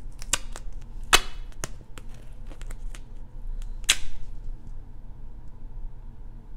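Sharp clacks and clicks of metal tools and parts being handled and set down on a wooden workbench, with two louder knocks that ring briefly, about a second in and about four seconds in.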